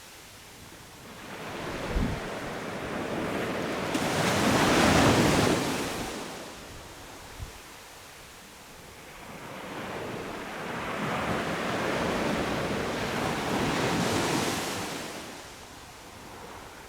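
Sea waves breaking on a beach: two waves each build to a rushing wash and fade away over several seconds, with a couple of brief low thumps.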